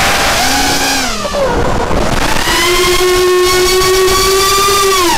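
FPV racing quadcopter's brushless motors and propellers whining under throttle, with wind rush on the onboard camera's microphone. The pitch dips about a second in, then climbs and holds high as the quad punches upward, and drops sharply at the end as the throttle is cut.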